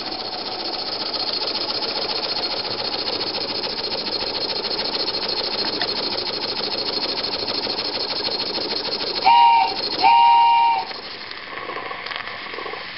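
Homebuilt double-acting oscillating steam engine running fast under load, its exhaust chuffing away in a rapid, steady beat. About nine seconds in, two short whistle tones sound, and soon after the chuffing drops away.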